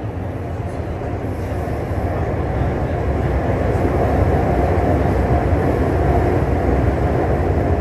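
Xiamen Metro Line 1 train running between stations, heard from inside the car: a steady rumble of wheels and running gear that grows gradually louder.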